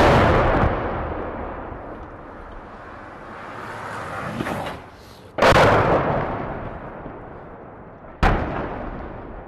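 Explosions: a loud blast as it opens, then two more sudden blasts about five and eight seconds in, each followed by a long echoing rumble that slowly fades.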